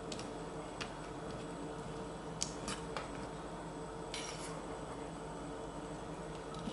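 Metal spoon clinking and scraping against a metal bowl as it stirs cereal in milk. There are a few light clicks in the first three seconds and a short scrape about four seconds in, over a steady low hum.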